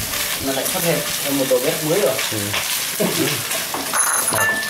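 Meat sizzling and spitting fat over a charcoal grill, a steady crackling hiss, with indistinct voices talking over it.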